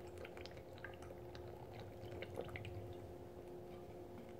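Faint gulping and small liquid sounds as lemon juice is chugged from a bottle, over a steady faint hum.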